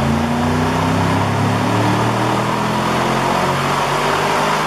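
Car engine under full load on a chassis dynamometer during a power pull, its revs climbing slowly and steadily.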